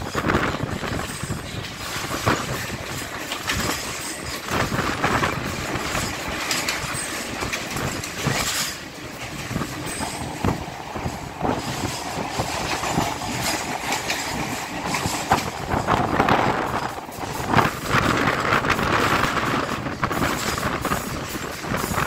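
Passenger train running along the track, heard from an open carriage window: a steady rumble of wheels on rails with clattering.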